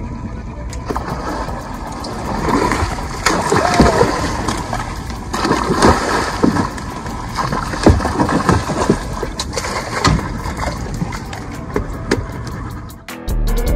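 A hooked mahi-mahi thrashing at the side of a small fishing boat as it is hauled in: loud, irregular water splashing with a few sharp knocks. Music starts near the end.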